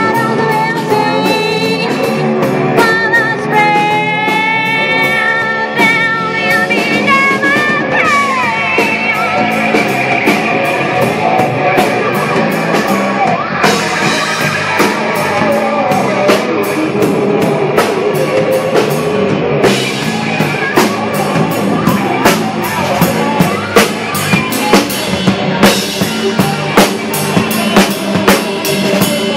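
Live rock band playing: electric guitar, bass, keyboard and a drum kit, with wavering, bending melody lines in the first several seconds. Toward the end the drum kit's snare and cymbal hits are close and prominent.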